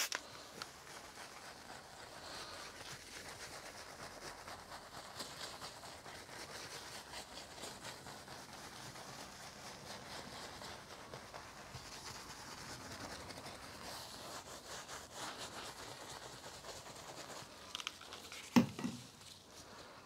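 Soft detailing brush scrubbing interior cleaner into a leather car seat: a faint, steady rubbing and scratching. Near the end there is a single sharp thump.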